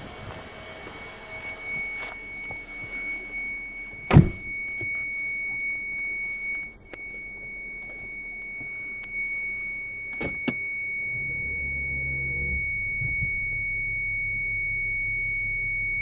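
License-plate parking sensor's buzzer sounding a steady high-pitched continuous tone while its display reads 0, the closest-range warning for an obstacle right behind the car. About four seconds in a car door shuts with a loud thunk, and a smaller knock comes some six seconds later.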